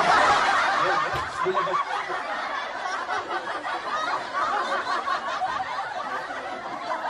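Laugh track: many people laughing at once, a dense continuous wave of laughter that starts suddenly.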